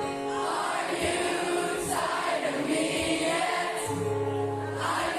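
Choral music with several voices singing sustained notes, starting abruptly at the outset.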